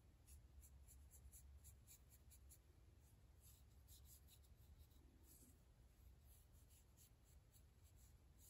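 Faint, quick scratchy strokes of a small paintbrush's bristles working water-based polyurethane onto a wooden chopstick-rest base, mostly in the first half, over a low steady hum.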